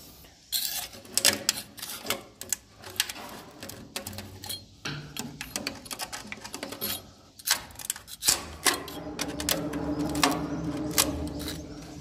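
A hand scraper scraping and clicking against a wooden swiftlet nesting plank, prying and cleaning off the remains of a harvested swiftlet nest in rapid, uneven strokes. A steady low hum joins about nine seconds in.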